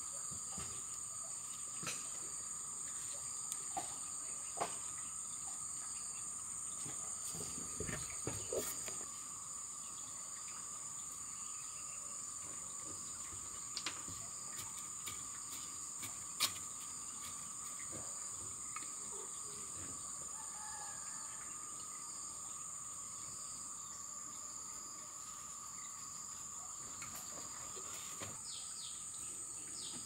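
Steady chorus of insects, a continuous high-pitched drone with a second, lower steady tone beneath it. Faint scattered clicks and scrapes of hands and a trowel working loose soil.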